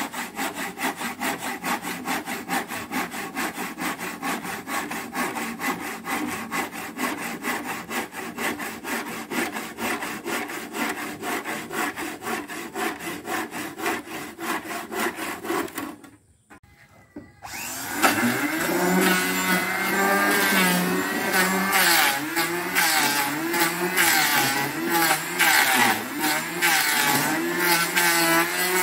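Handsaw cutting through a wooden boat plank with rapid, even strokes. The sawing stops about sixteen seconds in. After a short pause an electric hand planer starts and runs on the wood, its motor pitch wavering under load.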